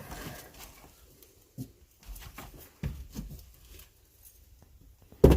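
Scattered light knocks and footsteps as people move about, with a louder knock near the end.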